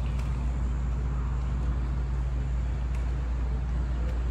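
Steady low rumble of outdoor city background noise, with a constant low hum underneath and a few faint clicks.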